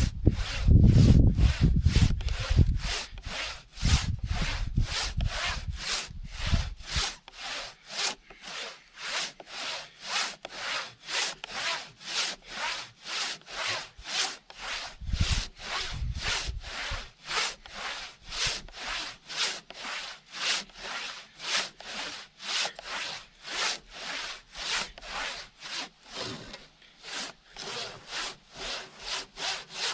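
Handsaw ripping lengthwise through a log in steady back-and-forth strokes, about two a second. A low rumble runs under the strokes for the first several seconds and again briefly about halfway through.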